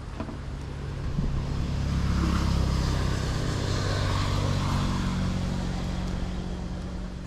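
A small motor engine passing by, its steady low drone growing louder over the first couple of seconds and then slowly fading away.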